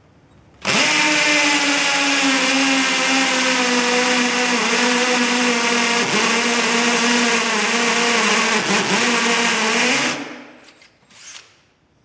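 Small electric drill (not a hammer drill) boring into concrete: the motor starts under load and whines steadily for about nine seconds, its pitch sagging slightly and dipping briefly a couple of times as the bit binds, then is let off and winds down. The drill is too light for concrete and is straining hard, overheating to the point of smelling burnt.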